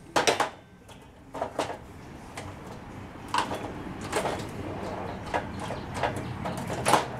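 A run of sharp metallic clicks and knocks from hand-tool work on the steel truck bed panel while quarter-inch rivet nut inserts are fitted and crimped into its drilled holes, with handling noise in between.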